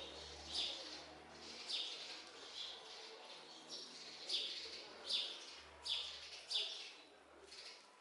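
A bird chirping: a string of about nine short, high calls, each dropping quickly in pitch, repeated roughly once a second and loudest in the middle.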